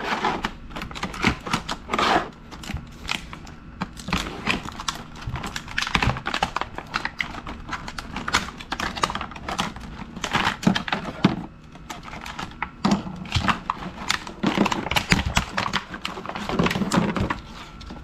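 Plastic trim and molding tools from a pry-tool set clicking and clattering as they are handled and sorted, in an irregular run of small knocks and clicks.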